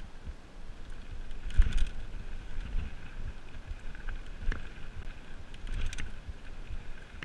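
Mountain bike rolling fast down a dirt singletrack: a steady low rumble of tyres on dirt and wind on the microphone, broken by rattling clatters of the bike over bumps, loudest about one and a half seconds in, with a knock midway and another rattle near six seconds.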